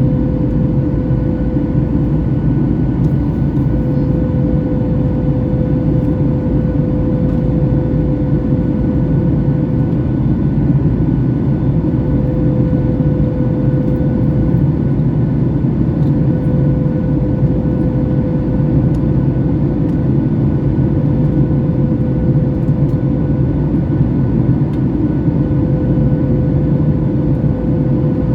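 Cabin noise of a Boeing 737 MAX 8 in flight: a steady, loud drone of its CFM LEAP-1B engines and air rushing past the fuselage, with a constant humming tone over it.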